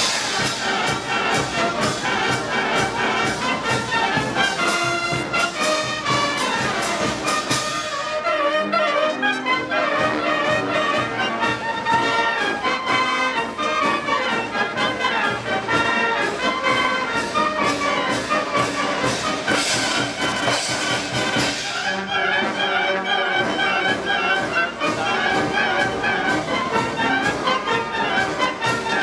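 Massed wind bands playing a piece together as one ensemble, with clarinets, saxophones, trumpets, trombones and sousaphones, over a steady beat.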